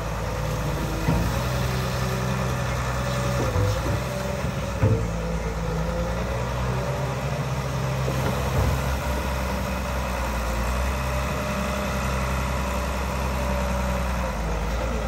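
Excavator's diesel engine running steadily as it swings its arm and scoops with a duckbill bucket, with a few short knocks along the way.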